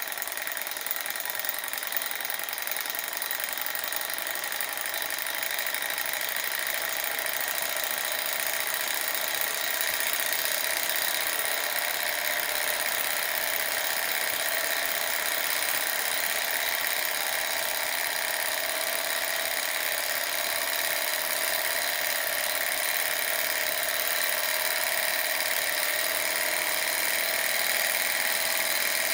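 A machine running steadily, with an even high whirring hiss and little low rumble.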